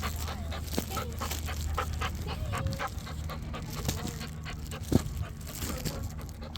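A dog panting quickly, with short whines in between and one sharp sound about five seconds in.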